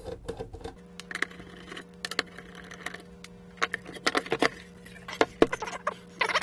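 Scattered clicks and clacks as a screwdriver and small machine screws are worked out of a hard plastic case, then the heavy plastic-cased fader panel is taken in hand and turned over on the desk. The knocks come in small clusters, mostly in the second half, over a faint steady hum.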